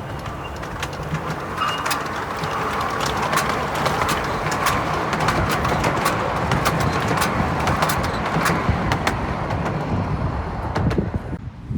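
Miniature railway train running past, a steady rumble with many short, irregular clicks from its wheels on the track, with wind noise on the microphone. The sound cuts off abruptly near the end.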